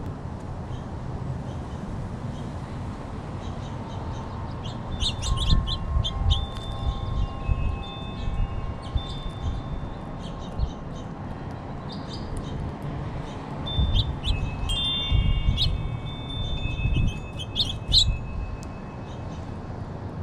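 Wind chimes ringing in two spells, about five and fourteen seconds in, several sustained tones at once, each spell with a low rumble of wind on the microphone. A few short, high bird chirps sound through it.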